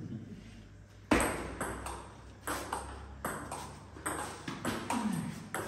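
Table tennis rally: the ball clicking sharply off the paddles and the table in a quick alternating rhythm, starting about a second in.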